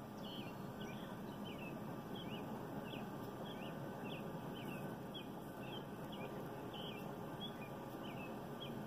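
A songbird chirping over and over, short high notes about two a second, over a steady low background noise.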